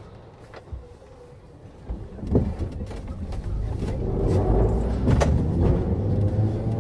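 Berlin U-Bahn class AI motor car (built 1924/25), heard from inside the car as it sets off. It is quiet at first; a sharp knock comes about two seconds in. Then the motor hum and running noise build steadily as the train gathers speed, with another click midway.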